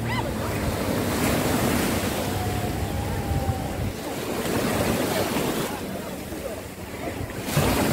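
Small waves washing onto the beach in surges every few seconds, with wind buffeting the microphone.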